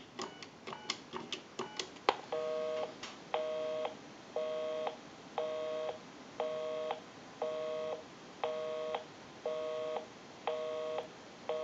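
Touch-tone keypad dialing a number as a quick run of short beeps, then a click and the busy signal: a low two-tone buzz pulsing on and off about once a second, the sign that the called line is busy.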